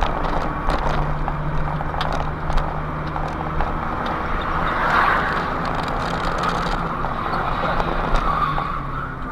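Steady engine hum and road noise heard from inside a moving vehicle through its dashcam, with small clicks and rattles along the way.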